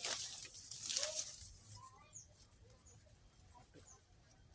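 Rustling handling noise in the first second, then faint, short bird calls scattered through the rest, over a steady high-pitched hum.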